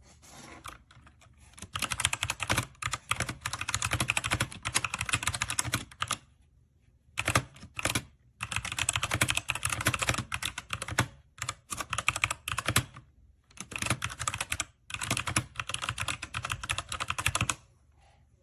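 Typing on a Redragon K617 Fizz 60% mechanical keyboard: fast runs of key clicks in several bursts of a second to a few seconds, with short pauses between them.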